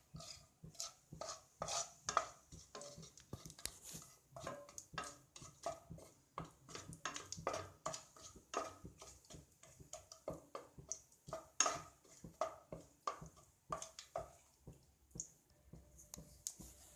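Spatula tapping and scraping against a pan while whole spices are stirred and lightly fried in hot oil, in quick irregular clicks a few times a second.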